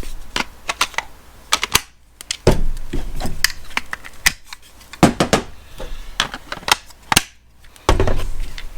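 Irregular clicks and knocks of hard plastic cordless impact wrenches and a measuring tool being handled on a hard surface, with heavier knocks about two and a half, five and seven seconds in.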